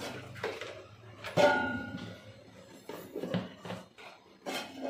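Stainless steel kitchen containers and tiffin boxes clinking and clattering as they are handled and set down on a shelf. One loud metallic clang about a second and a half in rings briefly, with lighter knocks near the middle and end.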